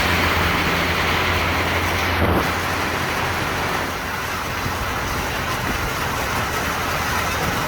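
Heavy rain falling, a steady dense hiss, with a low hum underneath that stops about two seconds in.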